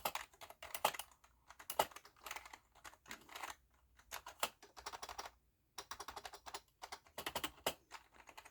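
Typing on a Pictek RGB gaming keyboard with membrane-style "crater structure" switches: quick, irregular, soft key clicks in runs, with a couple of short pauses. The keyboard is very silent to type on.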